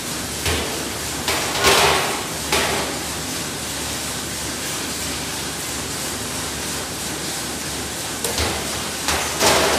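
Steady running noise of a pancake packing line's conveyors in a factory hall, broken by sharp knocks and clatters, a cluster of them in the first few seconds and again near the end.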